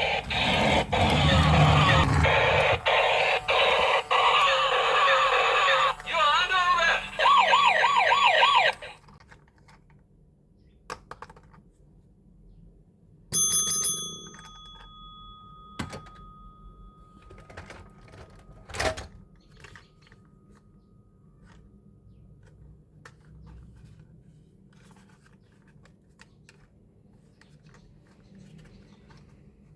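Toy police car playing loud electronic siren sound effects with wavering pitch, cutting off about nine seconds in. About four seconds later a single bell-like ding rings out, followed by faint clicks and taps of the toy being handled.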